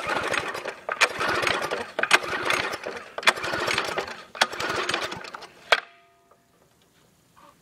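Recoil starter of a Craftsman pressure washer's Briggs & Stratton engine pulled five times in quick succession, about once a second, each pull a short whirring rush as the engine turns over without catching. It ends in a last click and the engine stays dead; the owner puts the hard start down to oil in the cylinder.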